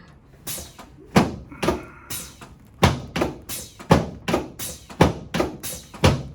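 A quick, uneven series of sharp knocks and thunks from a chiropractic adjustment on a treatment table, about two or three a second.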